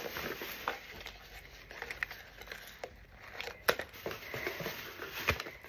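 Soft handling noise from a cardboard-banded pack of crew socks and a small Pringles can being moved in the hands: light rustles and a few scattered taps, two sharper ones in the second half.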